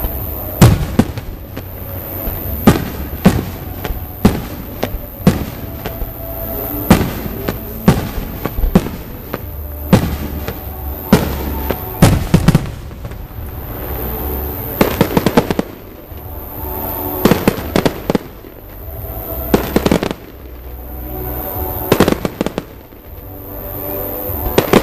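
Aerial fireworks shells bursting in an irregular string of sharp bangs, a second or two apart, with some coming in quick clusters.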